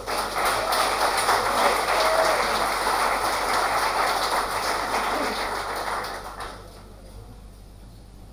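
Audience applauding, dying away after about six and a half seconds.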